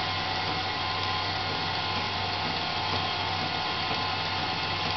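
Sanford SG48 surface grinder running steadily: the spindle motor hums while the wheel skims a cold-rolled steel block on a spark-out pass with no added infeed, the table traversed by hand.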